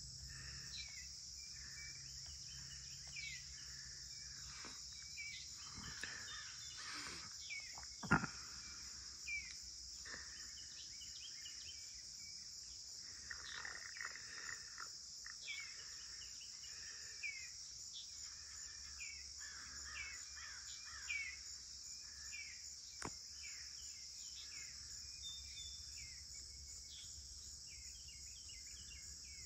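Dawn insect chorus of crickets, a steady high trill, with birds chirping on and off throughout. A sharp click sounds about eight seconds in and another later.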